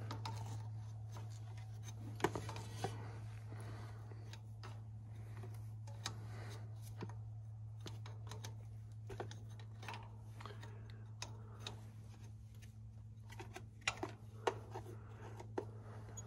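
Irregular small metallic clicks and taps of a 9/16 wrench working an injector return-line fitting on a tractor diesel. A steady low hum runs underneath.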